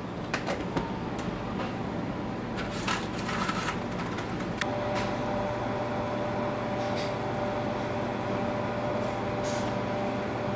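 Indoor room tone at a sushi counter: a steady machine hum, with scattered light clicks and clatter in the first few seconds and a steady thin tone coming in a little before halfway.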